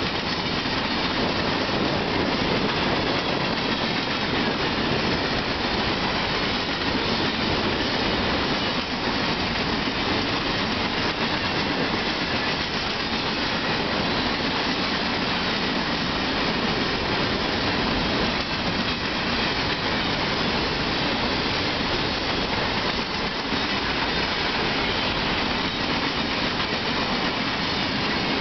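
Empty coal hopper cars of a freight train rolling past, a steady noise of wheels on the rails with some clickety-clack.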